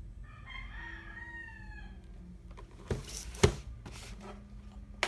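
One long call from a fowl, lasting close to two seconds and dropping in pitch at the end, then two sharp knocks about half a second apart, the second one the loudest.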